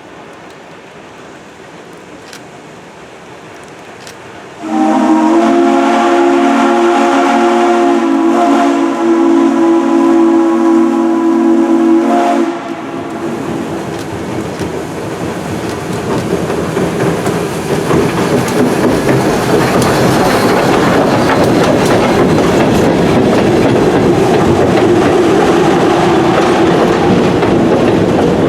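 Steam locomotive's chime whistle blowing one long blast of about eight seconds, starting about five seconds in and cutting off sharply. Then the train running past, its noise building and staying loud.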